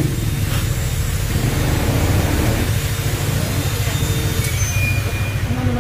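Yamaha Aerox 155 scooter's single-cylinder engine idling, a steady low rumble.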